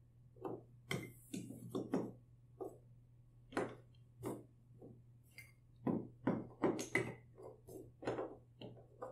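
Wooden toy train track pieces clacking and knocking together as they are handled, pulled apart and fitted by hand: a string of irregular sharp wooden knocks, thickest in the second half, over a faint steady low hum.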